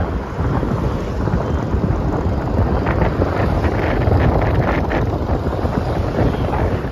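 Heavy wind buffeting the microphone of a camera moving along a road, over low road and traffic noise, with a few crackles between about three and five seconds in.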